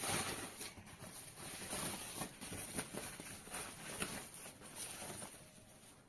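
Plastic protective wrapping rustling and crinkling as hands pull it off a monitor stand part, a continuous run of irregular crackles that grows fainter near the end.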